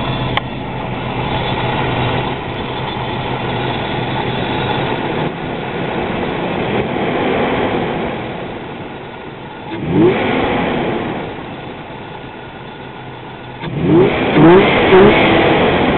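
1995 Toyota 4Runner engine with an aftermarket cold air intake, idling steadily, then revved once about ten seconds in and blipped three times in quick succession near the end; the owner is trying to show a noise he can't identify.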